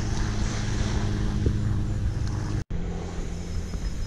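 An engine running steadily, a low droning hum under an even hiss, with a brief break about two-thirds through.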